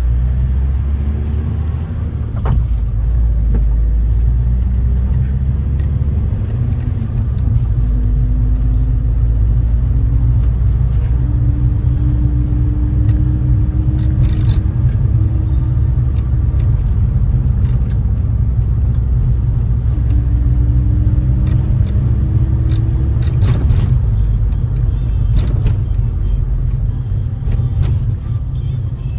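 Inside a minibus on the move: a loud, steady low engine and road rumble, with the engine note rising slowly a few times as it accelerates. Scattered sharp clicks and rattles from the cabin, thickest near the middle and in the second half.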